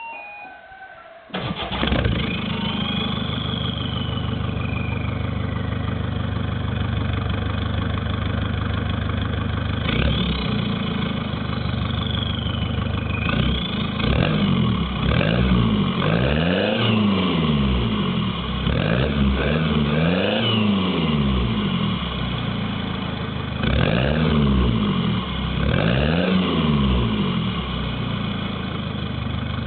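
Peugeot 206 1.4 HDi four-cylinder turbodiesel starting about a second in and settling to idle, then revved repeatedly in short blips from about ten seconds on. It breathes through a WM Sport aftermarket sport silencer with the catalytic converter removed.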